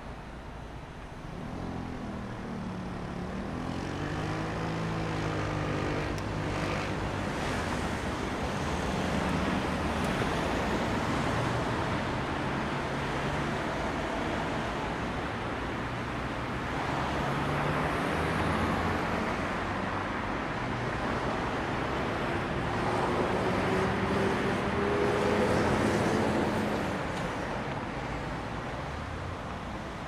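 Road traffic at a city junction: a steady rush of passing cars, with engine notes rising in pitch as vehicles accelerate, once a couple of seconds in and again toward the end, where it is loudest.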